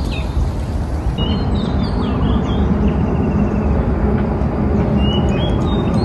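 Steady low outdoor rumble, with birds chirping briefly several times over it.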